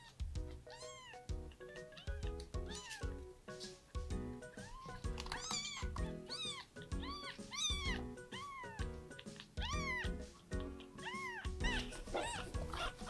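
Newborn kitten mewing over and over, high arching cries about once a second: the hunger cries of a bottle-fed baby kitten waiting for milk. Background music with a steady beat plays underneath.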